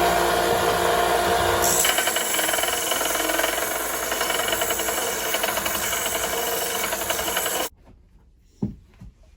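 Electric power tool running steadily while working wood, its pitch shifting just under two seconds in, then switched off abruptly about three-quarters of the way through. A single short knock follows about a second later.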